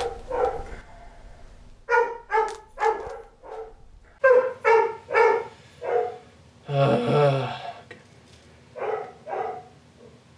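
A dog barking in short runs of three to five barks, with pauses between the runs and one longer, rougher sound about seven seconds in.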